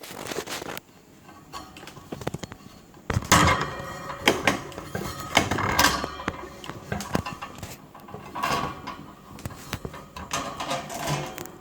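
Metal parts of a stand fan being handled and taken apart by hand: irregular knocks, clicks and scraping, with the loudest knock about three seconds in.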